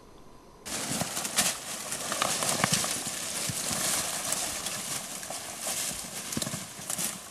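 Dry brush crackling and rustling, with scattered twig snaps and footsteps on loose ground, as people push their way uphill through dense dry undergrowth. It starts suddenly about a second in.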